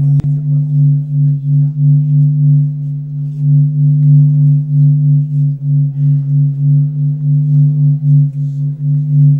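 A loud, steady low drone of several held tones that waver in loudness a few times a second, a drone music accompaniment. There is a single sharp click just after the start.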